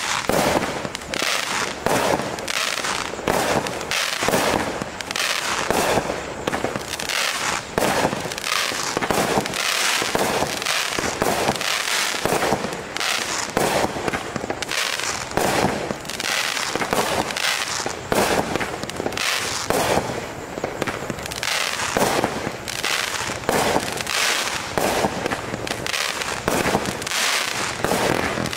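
A 25-shot, 200-gram consumer fireworks cake firing its shots in sequence, with sharp launches and aerial bursts about one a second.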